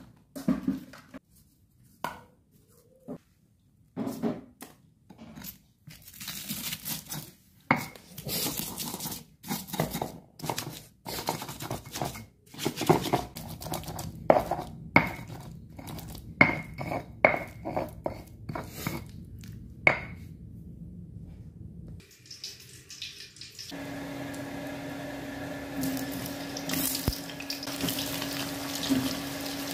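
Stone pestle knocking and grinding shallots and garlic against a flat stone mortar in uneven strokes. About 24 seconds in, this gives way to eggplant pieces frying in hot oil in a wok, a steady sizzle with a low hum under it.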